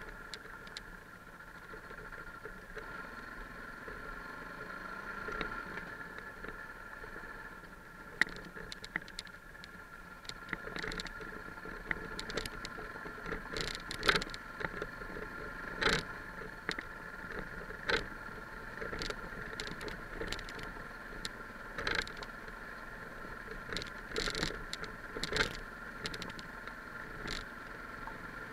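Single-cylinder dual-sport motorcycle riding a gravel track, heard from a camera mounted on the bike: a steady engine drone with frequent irregular sharp knocks and rattles from bumps and stones.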